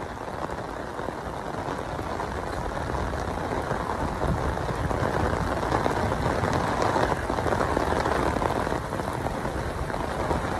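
Heavy rain falling on a wet road: a steady hiss that grows a little louder over the first few seconds.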